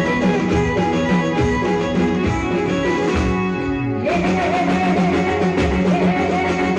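Live band music for a Gujarati folk song, with drum kit and hand-drum percussion under melodic instruments. A little past the middle the upper parts thin out briefly, then the full band comes back in.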